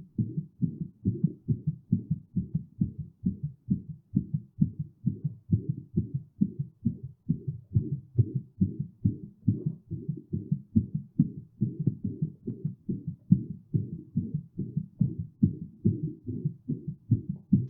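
Human heartbeat, closely recorded: a fast, steady run of dull low beats, the heart rate raised by physical exertion.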